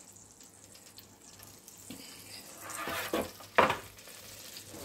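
Faint sizzling of hot pork fat in a metal roasting tray, then the tray scrapes and is set down with one clunk about three and a half seconds in.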